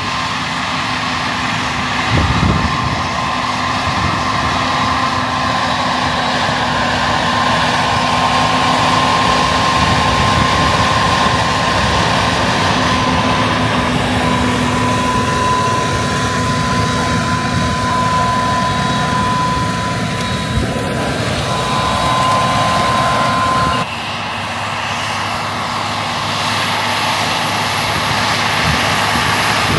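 Versatile DT620 tracked tractor's diesel engine running steadily under load while pulling a planter, with a steady whine over the rumble. The sound changes abruptly and drops in level about three-quarters of the way through, then builds again.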